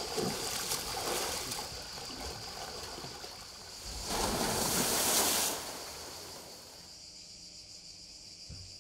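Water splashing in an outdoor swimming pool, then a louder rush of water pouring down a water slide about four seconds in, over a steady high insect drone.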